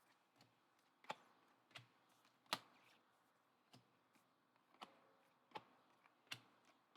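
Light clicks and taps of trading cards being handled, about seven spread irregularly, the loudest about two and a half seconds in.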